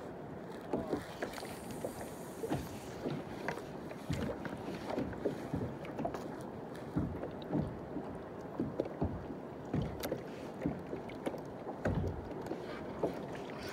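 Small waves lapping and slapping against the hull of a kayak in soft, irregular splashes, a few each second, over a low steady wash of water and wind.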